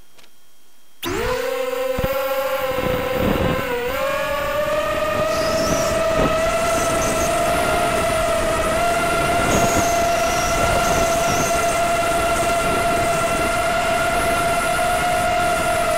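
ZMR250 racing quadcopter's brushless motors and propellers spinning up suddenly about a second in, then a steady high-pitched whine with a brief dip in pitch near four seconds, heard close up from its onboard camera.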